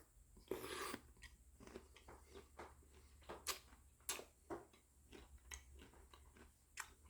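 Faint chewing of raw walnuts soaked in vinegar brine: irregular soft crunches and clicks, a few to a second, close to the microphone.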